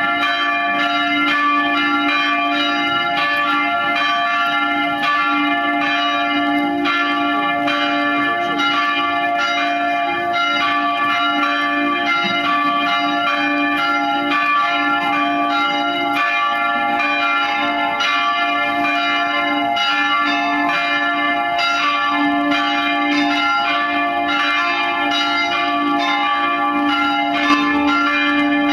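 Three swinging church bells cast by Van Bergen of Heiligerlee, rung together in a continuous, overlapping peal, each strike ringing on under the next. It is the ringing that calls the parish to Sunday mass.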